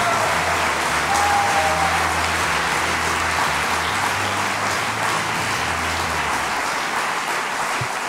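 Audience applauding steadily, over music with a low bass line that stops about six and a half seconds in.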